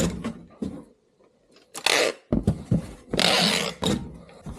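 Packing tape being pulled off the roll and laid across a cardboard box: two short pulls, about two and three seconds in, with a few knocks on the box between them.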